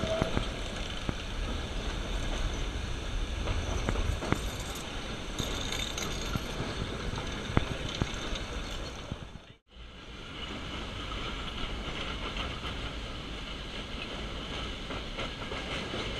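Metre-gauge Nilgiri Mountain Railway carriage running on the line: a steady rumble and rattle of wheels and coach body, with a few sharp clicks in the first half. The sound breaks off briefly a little past halfway and resumes much the same.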